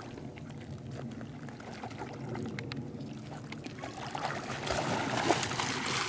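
Water sloshing and splashing as a small dog swims and paddles through shallow lake water, getting louder from about four seconds in as it comes close. A low steady hum runs underneath.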